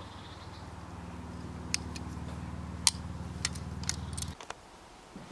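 Sharp clicks and light knocks of metal grill tongs setting a grilled pork tenderloin down on a wooden cutting board, over a steady low hum that cuts off suddenly about four seconds in.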